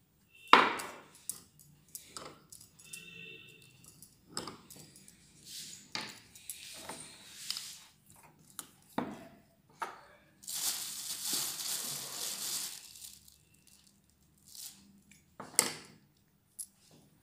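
Hands kneading soft sweet-potato dough in a glass bowl: irregular squishing with sharp clicks and knocks against the glass, and a rustle lasting a couple of seconds past the middle.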